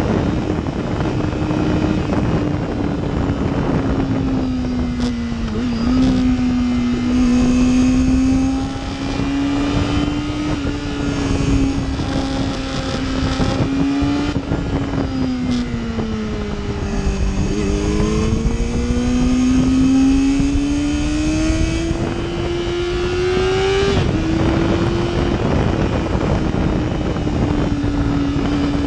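Supersport motorcycle engine heard onboard over heavy wind rush, holding a high, steady drone whose pitch sags slowly into the middle and then climbs for several seconds before dropping sharply at an upshift.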